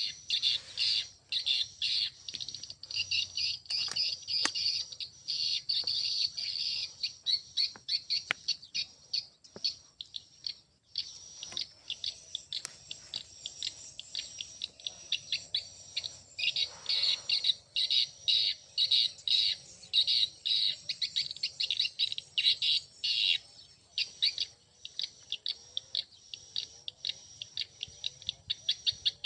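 Swiftlets twittering: a dense, rapid run of short, high chirps, several a second, with a brief lull about eleven seconds in.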